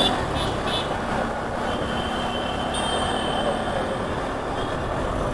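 Steady wind rush and riding noise from a Bajaj Pulsar NS200 motorcycle under way, its engine running evenly beneath the rush of air.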